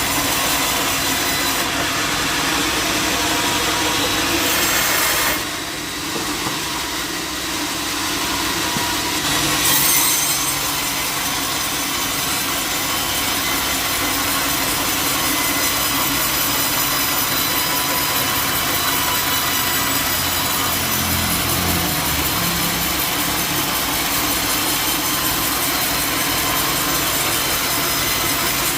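Sawmill band saw cutting through jackfruit wood, a steady loud blade-in-wood noise. It eases off for a few seconds about five seconds in, then comes back at full level.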